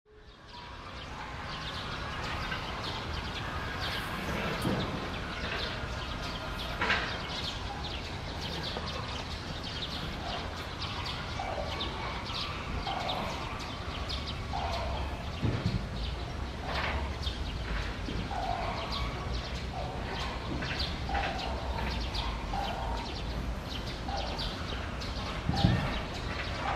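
Short bird calls repeating again and again over a steady low background rumble, with a few sharp knocks.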